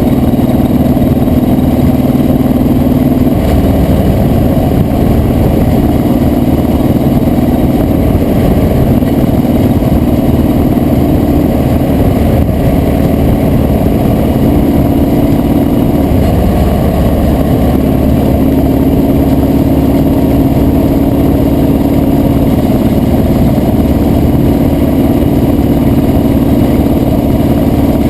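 Motorcycle engine running at road speed, its pitch holding steady and then stepping up or down every few seconds as the throttle changes.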